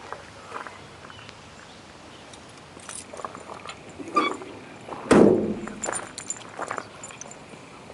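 Light clicks and metallic clinks of something being handled, then one loud, sudden thump about five seconds in, followed by a few more clicks.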